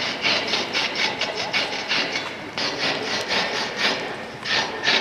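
Fast, even rasping strokes, about five a second, like a tool scraping back and forth; the rhythm loosens in the last second into a few separate, louder strokes.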